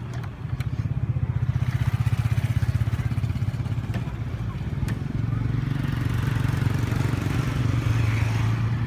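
An engine running with a low, rapid pulse that grows louder in the second half, with a few sharp clicks.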